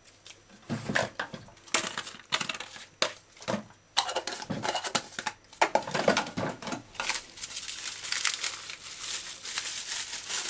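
Irregular handling noises, then from about two-thirds of the way through a steady crinkling of a plastic bag being handled.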